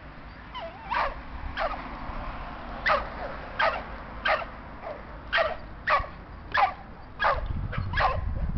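A dog barking repeatedly, about a dozen barks at roughly one every two-thirds of a second.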